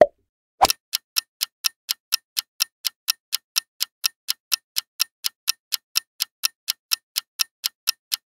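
Quiz countdown timer sound effect: a clock ticking steadily, about four ticks a second, starting just under a second in after a couple of short pops.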